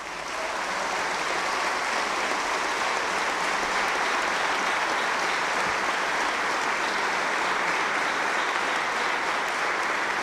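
Applause from a large seated audience clapping together, swelling within the first second and then holding steady.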